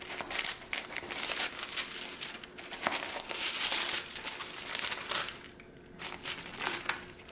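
Paper packaging crinkling and rustling as a shoe box is unpacked by hand. It goes in bursts for about five seconds, then two brief rustles near the end.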